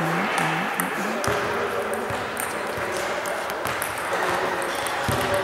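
Table tennis balls clicking lightly and irregularly off table and bats as play goes on, over a steady background hum.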